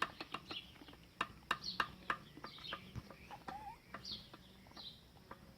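A string of light, separate metallic clicks and taps from small engine parts being moved by hand, with birds calling in the background.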